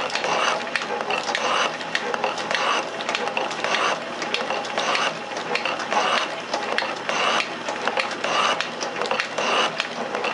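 Metal shaper running, its ram stroking back and forth about once a second as the tool cuts a steel block held in the vise. Each stroke brings a burst of mechanical clatter and sharp clicks.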